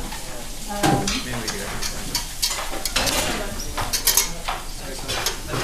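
Busy kitchen clatter: a wire whisk stirring a flour-thickened sauce in a metal saucepan, with knives and utensils knocking on boards and pans in irregular clicks. Faint background voices.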